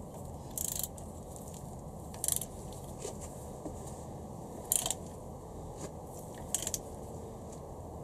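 Click-type torque wrench ratcheting on an ARP cylinder-head nut during the first torque stage (about 54 N·m): short bursts of ratchet clicks, four times, about two seconds apart.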